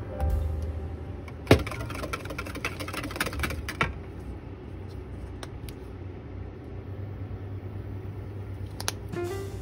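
Wire whisk clicking and scraping against a glass bowl as it stirs egg-yolk hollandaise sauce, in a dense run of quick clicks after one sharp knock about a second and a half in, with a few more clicks near the end. A low steady hum lies underneath.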